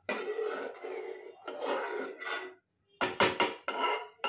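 Steel spoon stirring and scraping around the inside of a metal pressure cooker holding rice and water. Two longer scrapes come first, then quicker, sharper strokes near the end.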